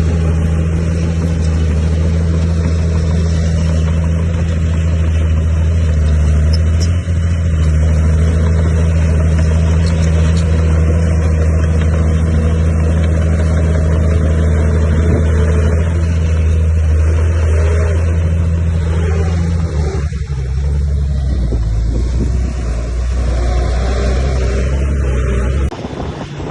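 Heavy diesel engine of earthmoving machinery running steadily at constant speed; its pitch shifts lower about 20 seconds in, and the sound drops off suddenly near the end.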